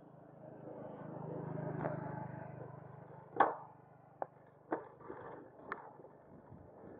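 Muffled street sound picked up by a bicycle-mounted action camera: a low motor hum swells and fades over the first few seconds, then a handful of sharp knocks and rattles, the first the loudest.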